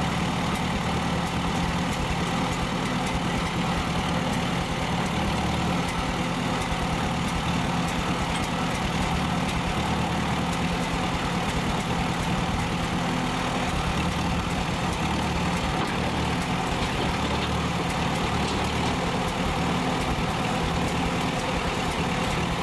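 Old tractor's engine running steadily while it works its front-end loader.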